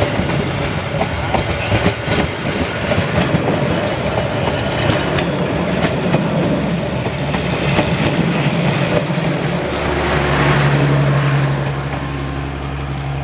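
Train passing close on the track, its wheels clattering over the rails with many sharp metallic clicks. About ten seconds in, the clatter gives way to a steady low engine hum.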